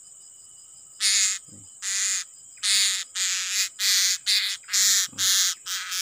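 Young male blue-crowned hanging parrot held in the hand, giving a run of harsh, shrill screeches, about two a second, starting about a second in, over a steady high buzz of insects.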